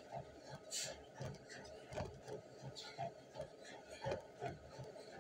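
Footfalls of someone running on a treadmill, about three steps a second, mixed with the machine's mechanical rattle.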